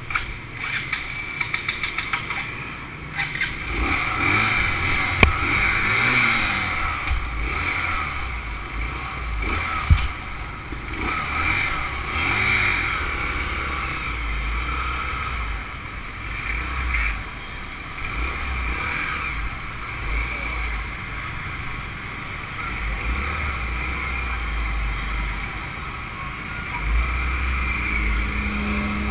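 Motorbike being ridden through city traffic: its engine running with the low rumble of wind on the microphone, the rumble rising and falling as it moves. A quick run of clicks sounds in the first few seconds.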